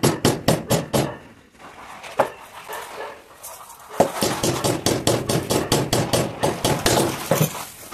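Quick, light hammer blows driving small nails into a wooden drawer frame, about five a second. There is a short run in the first second, then a longer run from about four seconds in.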